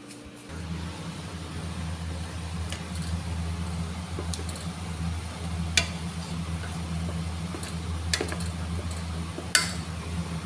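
Wooden slotted spatula stirring a thick sauce in a steel cooking pot, with a few knocks against the pot, the sharpest near the end. Under it a steady low mechanical hum starts about half a second in.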